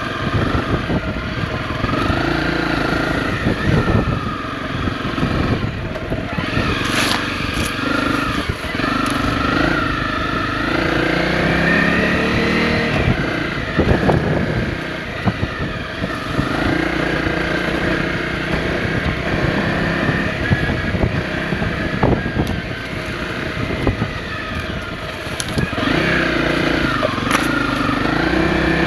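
Honda CRF250 Rally's single-cylinder engine running under way, its pitch rising and falling with the throttle. Occasional knocks from the bike going over bumps in the trail.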